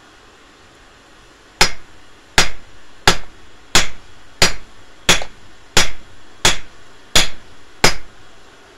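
Hand hammer striking a red-hot steel bar on an anvil while forging a tent peg: ten evenly spaced sharp blows, about three every two seconds, starting a second and a half in.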